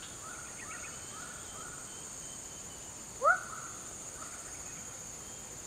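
Steady high-pitched drone of insects in swamp vegetation. A few short faint animal calls come in the first two seconds, then one loud, brief call with a quick rise in pitch about three seconds in.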